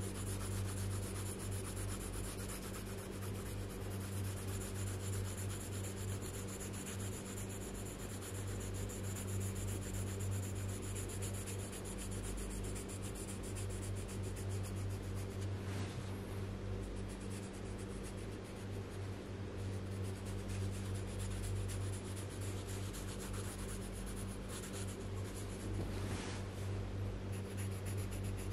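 Coloured pencil scratching rapidly back and forth on paper, shading in an area of colour in a steady stream of short strokes, over a steady low hum.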